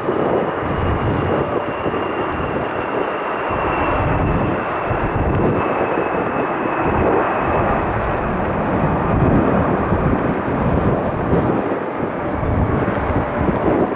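Airbus A320-200 jet engines at takeoff power, a steady loud rush. A thin high whine sinks slowly in pitch over the first several seconds.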